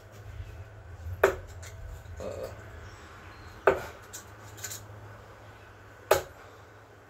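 Three darts thrown one after another and striking a bristle dartboard hung on a wooden wall: sharp thuds about two and a half seconds apart.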